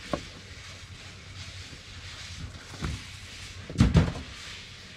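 A few short knocks and thumps from fish being handled and filleted on a table, the loudest a close double thump about four seconds in, over a steady background hiss.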